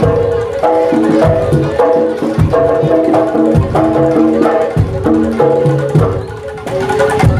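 Live Javanese jaranan music: hand-drum strokes and a deep beat a little over once a second, under a repeating melody of bright pitched notes.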